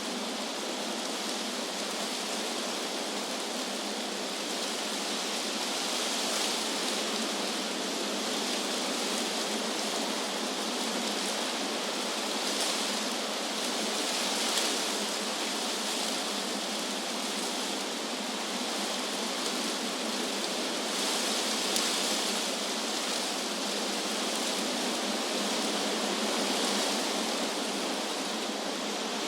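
Wind blowing through trees: a steady rushing hiss of moving leaves, swelling slightly every few seconds.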